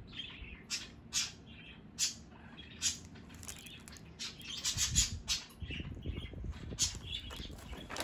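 A pet bird giving short, scattered chirps, mixed with the crinkle and rustle of a plastic bubble mailer and a paper slip being handled, louder about halfway through.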